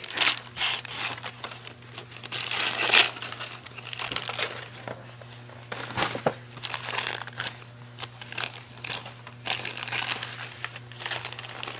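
Wrapping paper being torn and crinkled in irregular bursts as a present is unwrapped, over a steady low hum.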